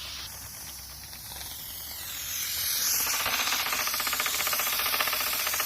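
Silvercrest SDM 1500 D3 steam mop hissing as it puts out steam. About three seconds in it grows louder and a rapid, even pulsing rattle joins the hiss.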